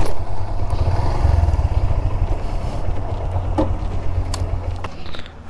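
Motorcycle engine running at low revs, a fast pulsing low rumble, easing off briefly near the end.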